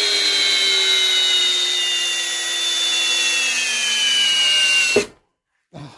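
Milwaukee cordless drill running on a Flex battery, boring a long bit into a block of wood. The motor whine sinks slowly in pitch as the bit loads it down, then cuts off suddenly about five seconds in, as the drill binds in the wood and can't be held.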